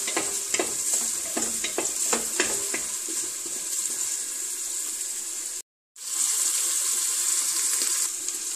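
Minced meat and onions sizzling as they fry in oil in a stainless steel pressure cooker pot, with a wooden spoon scraping and knocking against the pot during the first three seconds. The sound cuts out for a moment just before six seconds in, then the steady sizzle goes on.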